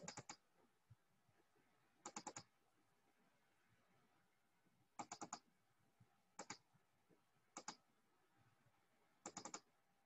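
Faint computer clicking: six short bursts of three or four quick clicks each, a second or more apart.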